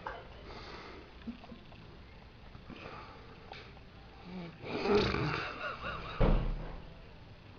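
A man snoring loudly in his sleep: quiet breathing for several seconds, then one loud snore about a second long, followed by a shorter, deep snore-burst.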